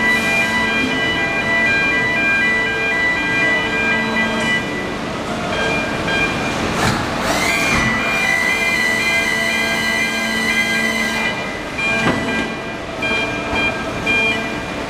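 Automated precast-concrete pallet-handling machinery running: a steady mechanical hum and whine made of several tones that drop in and out, with a whine rising in pitch about seven seconds in and a knock a couple of seconds before the end.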